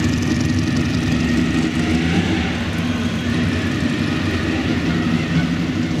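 Historic Ferrari's engine idling steadily.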